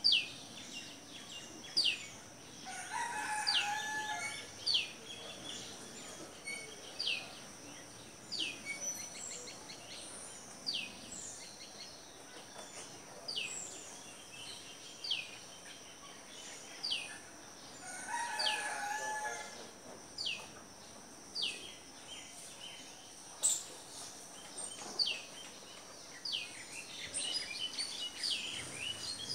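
Birds calling: one bird repeats a short falling whistle about once a second. A longer, lower call comes twice, about three seconds in and again near eighteen seconds, over a steady high-pitched whine.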